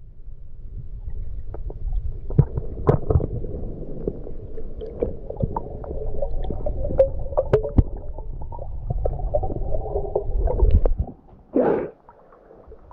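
Underwater recording of a spearfishing dive: a steady low rumble of water with many sharp clicks and knocks from the speargun gear. The rumble cuts off about eleven seconds in, followed by a brief rush of sound.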